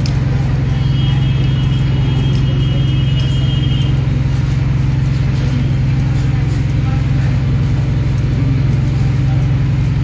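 A steady low engine drone, running evenly with a regular low pulse, with a faint thin high tone for a few seconds about a second in.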